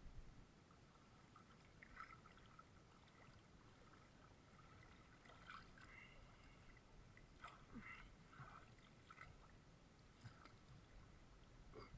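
Near silence with faint, scattered splashes and drips of river water.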